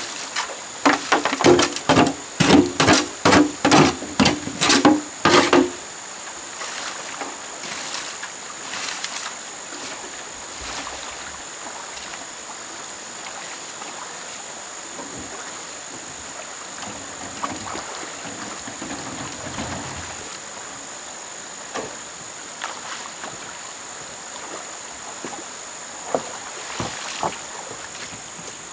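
A rapid run of about a dozen sharp strikes on something hard, each with a short ringing tone, lasting about five seconds. After that, a steady hiss with a thin, high, unchanging tone, broken by a few single knocks near the end.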